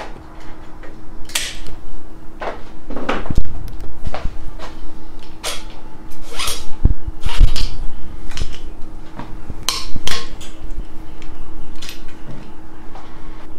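Metal clicks and clinks from bicycle brake levers and cables being handled on a road bike's drop handlebar, with a couple of duller knocks about three and seven seconds in, over a faint steady hum.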